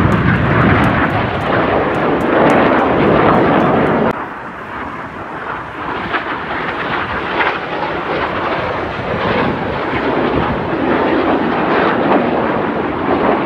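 Jet engines of Red Arrows BAE Hawk trainers flying overhead: a loud, rushing jet noise that drops abruptly about four seconds in, then slowly grows louder again.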